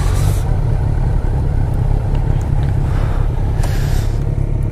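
Motorcycle engines idling: a steady low rumble.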